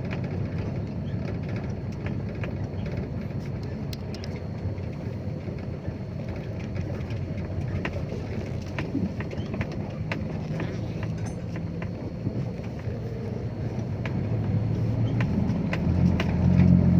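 Dump truck's diesel engine running under way in fourth gear, heard from inside the cab, with light rattles and clicks over the road. The engine drone grows louder toward the end.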